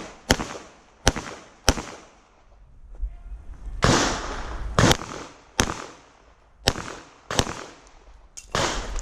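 Pistol shots fired one at a time at a deliberate pace, about eight sharp cracks roughly a second apart, with a pause of about two seconds after the first three.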